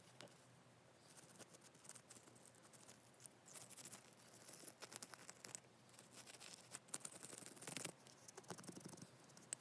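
Faint scratching and rubbing with small irregular clicks from hands working on a small metal lighter, likely cleaning or handling its parts.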